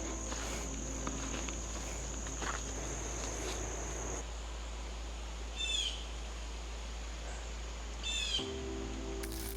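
An insect trills in one steady high tone that stops about four seconds in, then a bird gives two short calls, each a quick run of falling notes, a few seconds apart. Low music comes in near the end.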